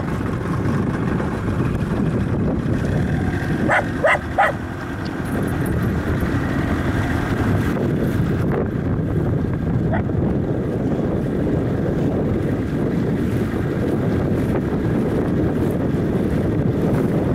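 Steady wind buffeting the microphone on a small boat moving across choppy lake water. Three short high-pitched cries break through about four seconds in, with a fainter one later.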